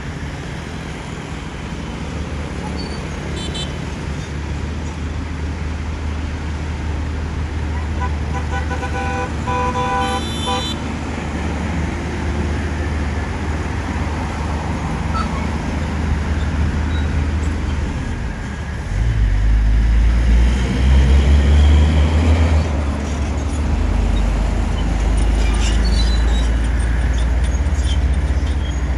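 Bulldozer's diesel engine running steadily with a low rumble, working harder and louder about two-thirds of the way through. A vehicle horn sounds for about two seconds near the middle.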